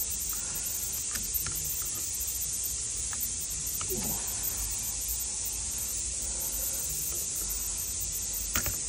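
Steady background hiss with a few faint small metallic clicks as circlip pliers work a circlip into the bore of a diesel turbo boost modulator housing.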